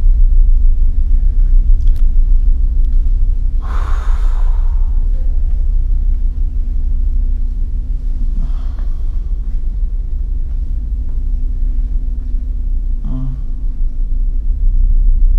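Steady low rumble with a faint steady hum underneath, and a short breathy sound about four seconds in, with fainter soft sounds later on.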